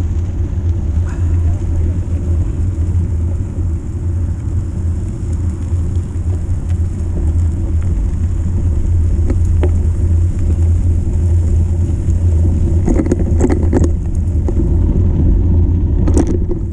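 Steady low rumble from riding a mountain bike on a gravel track: wind buffeting an action camera's microphone and knobby tyres rolling over the gravel, with a few short clicks and knocks near the end.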